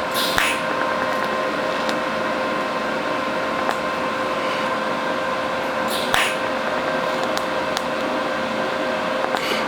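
Steady electrical hum from a TIG welding setup, with three short crackles: about half a second in, near six seconds and near the end, as the torch spot-welds pinholes in steel.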